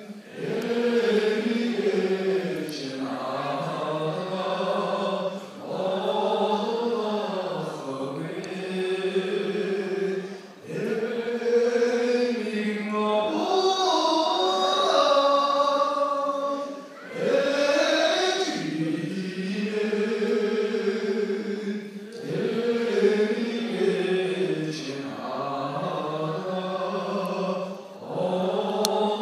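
A man singing solo into a microphone, in long drawn-out phrases that glide up and down in pitch, with short pauses for breath every few seconds.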